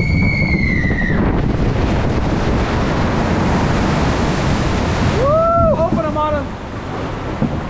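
Log flume boat plunging down its drop into the splash: a loud, even rush of wind on the microphone and water spray. A long high whoop sounds at the start, and riders shout about five seconds in.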